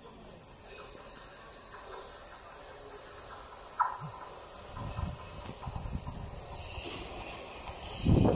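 A Class 377 electric multiple unit approaches in the distance: a steady high rail hiss, with low rumbling surges building over the last few seconds.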